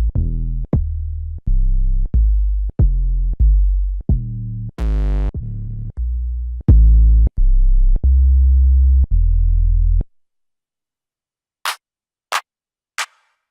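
A run of separate 808 bass samples from a trap drum kit, each a deep sustained boom; one glides down in pitch. They stop about ten seconds in, and after a short silence come a few short, sharp percussion hits, about one every half second.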